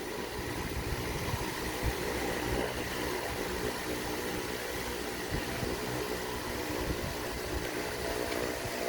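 Steady background hum and hiss.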